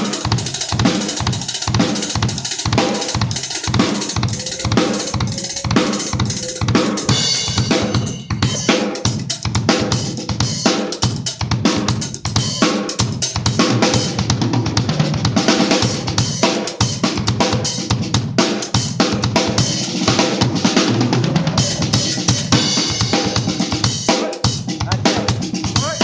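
PDP acoustic drum kit played solo: a continuous stream of kick drum and snare hits, with stretches of ringing cymbal wash.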